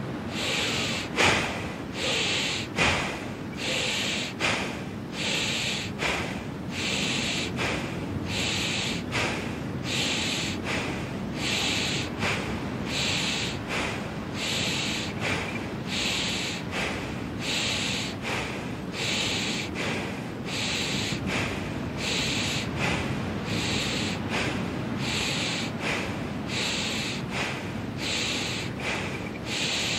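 Bhastrika (bellows breath): rapid, forceful breaths pumped in and out through the nose in an even rhythm, a little more than one stroke a second, the first few strokes the loudest.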